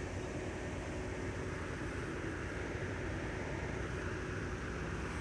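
A steady low engine hum with faint constant tones, unchanging throughout.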